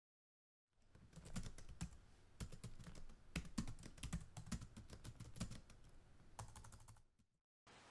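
Typing on a computer keyboard: irregular clicking keystrokes that start about a second in and stop about seven seconds in.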